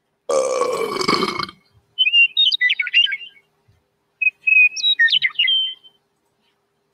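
A brief loud sound lasting about a second, then a songbird singing two short warbling phrases with quick trills.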